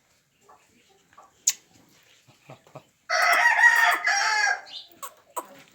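A rooster crowing once, a loud call about three seconds in that lasts about a second and a half. A sharp click comes about a second and a half in.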